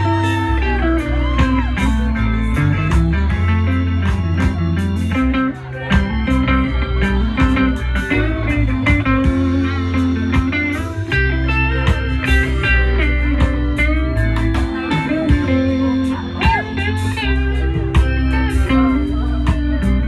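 Live reggae band playing: an electric guitar plays lead lines over keyboard, bass guitar and a steady beat.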